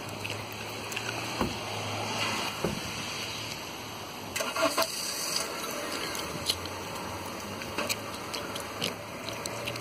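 Honda Civic car door thudding shut, then the car's engine running with a steady low hum, with a few knocks and rustles from inside the car.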